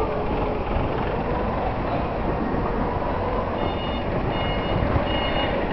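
Vehicle reversing alarm beeping repeatedly, starting about two-thirds of the way in, over a steady low rumble of noise.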